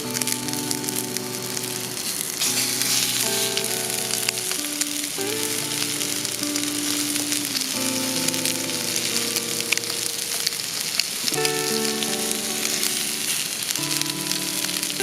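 Chicken wings frying in oil, a steady sizzle with fine crackling, under background music of sustained chords that change every second or two.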